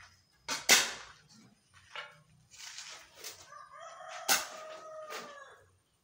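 A hoe chopping into a pile of soil and stones, about five hard strikes roughly a second apart, the loudest just under a second in. Over the later strikes a rooster crows once, a long call that falls slightly at the end.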